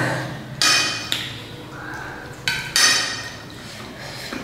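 Eating noises at a meal of rice and curd from steel plates: two short, sharp noisy sounds about two seconds apart.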